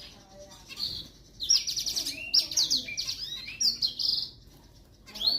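Zebra finch calling and singing: a short call about a second in, then a buzzy song of quickly repeated high notes lasting about three seconds, and another call near the end.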